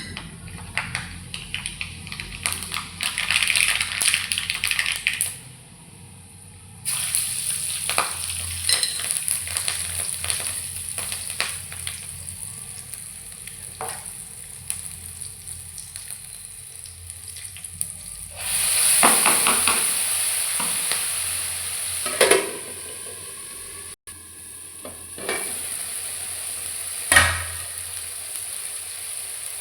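Food frying in hot oil in a pan, sizzling steadily while a spatula stirs it, with scraping and a few sharp knocks against the pan. The sizzle drops briefly early on, then comes back louder for a couple of seconds past the middle.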